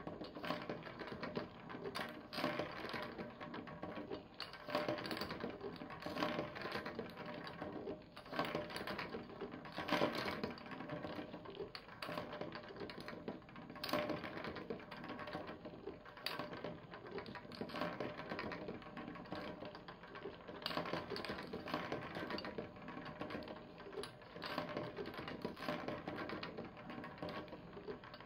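Steel and plastic balls rolling and clattering through a looped plastic toy marble run: a steady rattle with frequent sharp clicks as they strike the track and each other.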